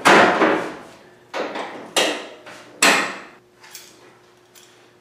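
Sheet-metal replacement quarter panel clanking as it is handled and clamped with locking-plier clamps: four sharp metallic knocks in the first three seconds, each ringing out for about half a second.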